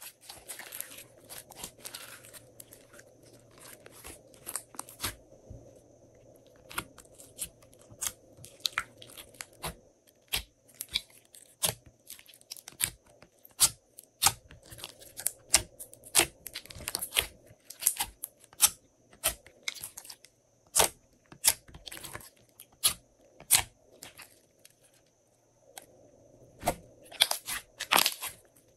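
Glossy slime being pressed and squeezed by hand, giving irregular sharp clicks and pops, about one or two a second, with a short lull near the end.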